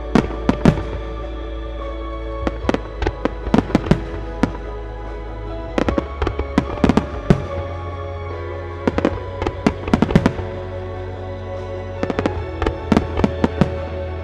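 Aerial firework shells bursting in rapid volleys of sharp bangs, a cluster every two to three seconds, with music playing steadily underneath.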